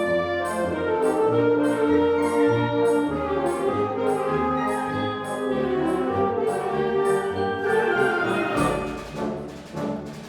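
A community wind band playing, with brass prominent in sustained chords over a moving bass line. A light high tapping keeps a steady beat of about three a second, and near the end the music changes to quicker, sharper strokes.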